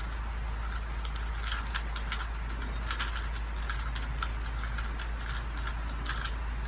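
Plastic Rubik's cube being twisted quickly, a run of irregular clicks and clacks as its layers turn, over a steady low hum.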